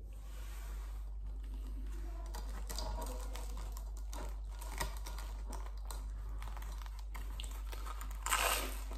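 Light crackling and clicking from fingers handling a bread roll with a hot dog in it, then a louder bite into the roll about eight seconds in.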